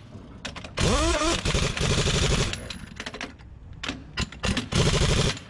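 Large pneumatic impact wrench running on a truck's wheel nuts: a burst of rapid hammering that opens with a rising whine as the air motor spins up, about a second in, lasting nearly two seconds. A few clicks follow, then a second short burst near the end.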